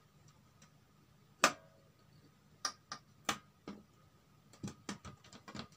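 Clicks and taps of an LED backlight strip being seated on the TV's sheet-metal back panel: one sharp click about a second and a half in, four lighter clicks over the next two seconds, then a quick run of small ticks near the end.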